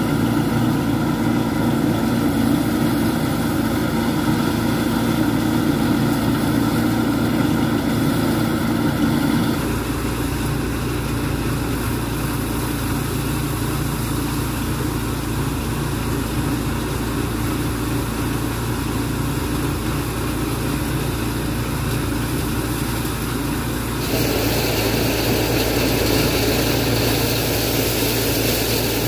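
A small engine or motor running steadily, its sound changing abruptly about ten seconds in and again near the end.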